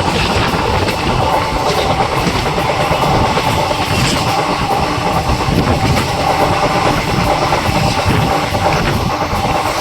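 Passenger train running along the track, a steady loud rumble of wheels on rail with light clickety-clack knocks.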